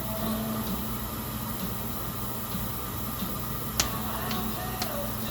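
LG commercial washing machine running mid-cycle: a steady hum with a wash of water noise, and three sharp clicks about half a second apart near the end.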